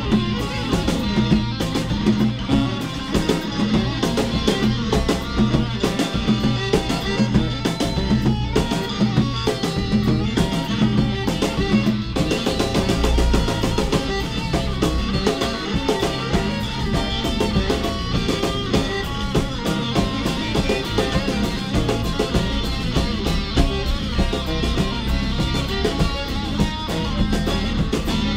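Free-jazz band playing a dense, loud improvisation of guitars over constant drum-kit hits, with bass underneath.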